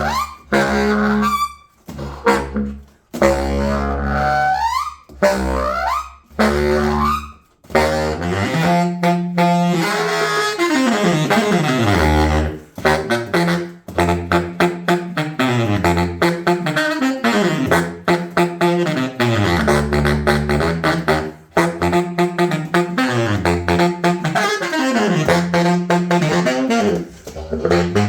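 Baritone saxophone being play-tested after a repair: short low notes with upward bends and pauses between them, then, about eight seconds in, continuous fast runs sweeping down and back up through the low register.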